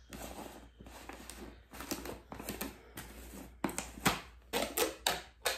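Plastic screw lid of a whey protein tub being twisted open: soft scraping at first, then a run of sharp plastic clicks in the second half.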